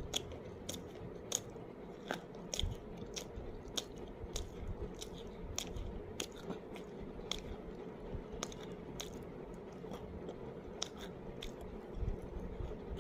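A person chewing dry pink edible clay close to the microphone: a steady run of sharp, crisp crunches, about two a second, over a faint steady hum.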